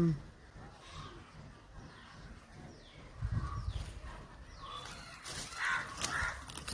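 Birds calling, with a few harsh crow-like caws in the second half and a low rumble or thump about three seconds in.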